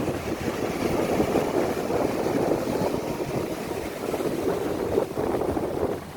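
Wind buffeting the microphone by the sea: a steady, rough rushing noise with no distinct tones.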